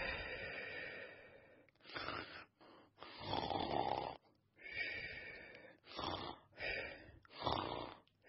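A person snoring: a run of about seven short, noisy breaths with brief silent gaps between them, the loudest about three seconds in.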